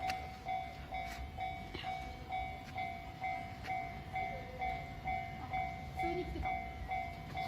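Japanese railway level-crossing warning bell ringing in steady repeated electronic dings, a little over two a second, over the low rumble of a passing train.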